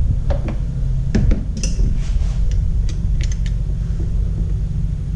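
Small metallic clicks and taps from a screwdriver and small carburetor parts on a Honda EU2000i generator, scattered over the first few seconds, over a steady low rumble.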